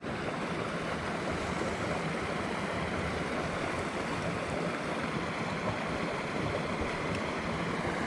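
Steady, even rushing outdoor noise with no distinct events.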